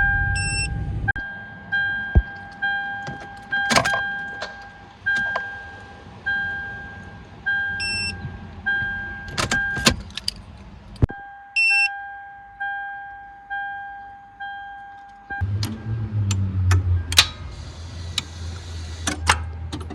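A 2003 Toyota 4Runner's warning chime dings about once a second, a steady two-tone ding, with scattered sharp clicks. About fifteen seconds in the chime stops and a low engine rumble takes over: the 2UZ-FE V8 cranking and catching after a delayed start.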